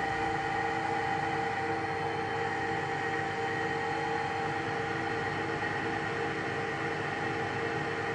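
Runmaster RUN 330x1000RR tool room lathe running under power longitudinal feed, its headstock and apron gear trains giving a steady, even whine of several tones as the carriage travels along the bed.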